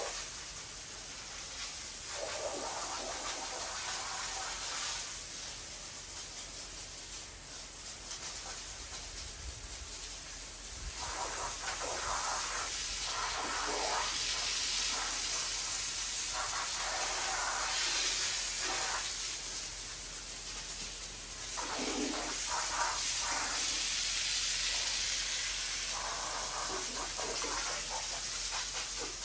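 Pressure washer jet spraying water onto a soaked rug and tiled floor: a steady hiss with splashing that comes and goes.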